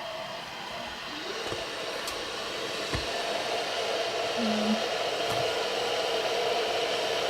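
Electric kettle heating water and nearing the boil: a steady hiss that grows gradually louder.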